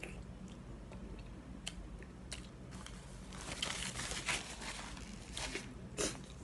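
Instant noodles slurped and chewed, then a paper tissue rustled and crumpled in the hand in several short bursts, loudest a little past the middle.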